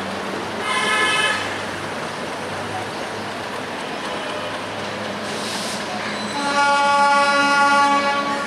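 Diesel locomotive horn: a short blast about a second in, then a longer blast of about two seconds near the end, over the steady low rumble of the approaching train.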